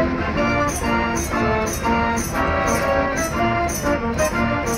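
Fairground pipe organ playing a tune, its pipes sounding held notes over a steady percussion beat of about two hits a second.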